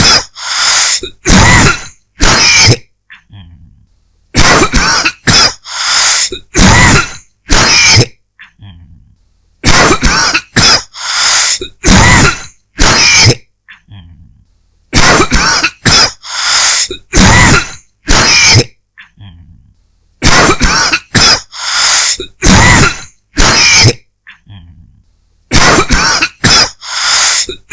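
A person's dry cough, coming in repeated fits of about five sharp coughs each, with short pauses between the fits.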